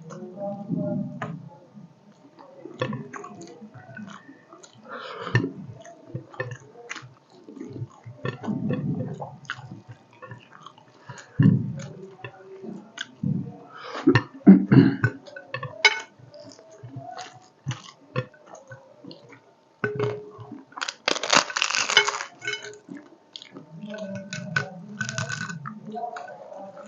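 Close-miked eating: chewing and crunching mouth sounds with many small clicks, as in an ASMR mukbang of fish curry and rice. A louder, crisper crunch comes about three quarters of the way through.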